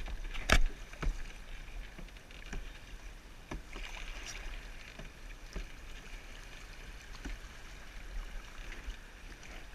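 Canoe being paddled: scattered knocks of the paddle against the canoe, the loudest about half a second in, over faint water splashing and lapping.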